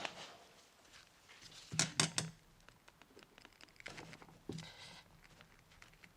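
Vise grips clicking and knocking against a brake caliper as a part is twisted and pried loose during a caliper rebuild: a few sharp metal clicks about two seconds in, then fainter knocks and scrapes around four seconds in.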